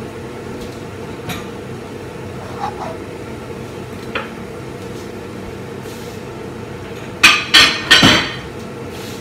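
Kitchenware clinking: three loud, sharp clanks in quick succession near the end, after a few faint clicks earlier, over a steady hum.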